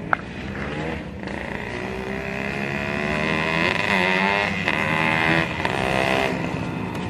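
Yamaha RX King's two-stroke single-cylinder motorcycle engine running under throttle, its pitch wavering up and down as it revs and growing louder over the first few seconds. A sharp click right at the start.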